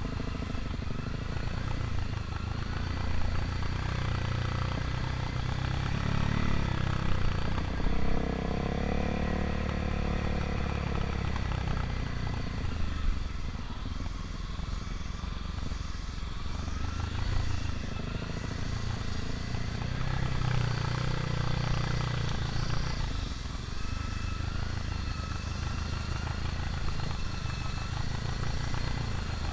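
Dirt bike engine running under way on rough trail. Its pitch rises and falls as the throttle opens and closes, with clear surges about a quarter of the way in and again about two-thirds in.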